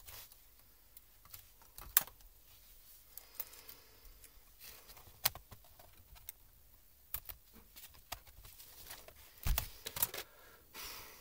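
Laptop chiclet keyboard being pressed and clipped into the plastic top case: scattered plastic clicks and snaps with light scraping, the sharpest click about two seconds in and a heavier thump near the end, followed by a short scrape.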